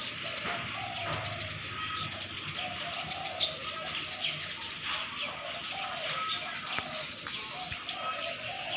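Birds calling: low cooing calls repeating about once a second, with a few short high chirps, over a steady hiss.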